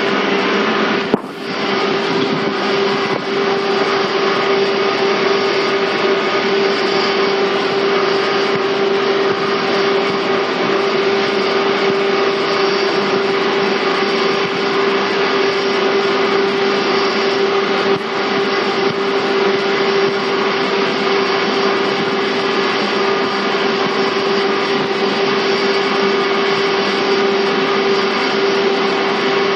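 Steady interior noise of a 485-series EMU motor car (MoHa 484): a constant hum with one strong unchanging tone over a rush of machinery noise. A sharp click about a second in, with a brief drop in the noise.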